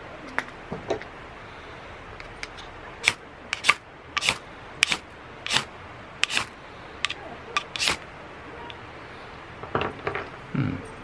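Coleman 502 camp stove's fuel-tank pump being worked by hand to pressurise the tank: a run of about eight sharp strokes a little over half a second apart, with a few softer clicks and knocks before and after.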